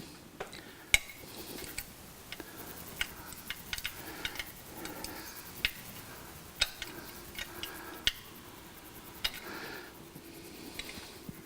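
Small nuts on the wood chipper's tachometer sensor mounting being tightened with a hand tool: irregular sharp metal clicks and clinks, the loudest about a second in.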